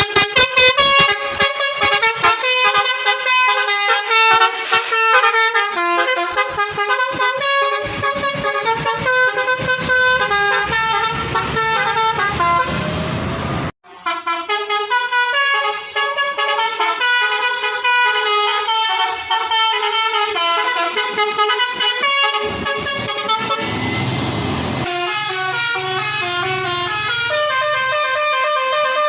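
Intercity bus's 'basuri' musical horn playing fast melodic tunes, the notes stepping up and down. It breaks off suddenly about halfway, and a second horn tune follows, with a low rumble underneath at times.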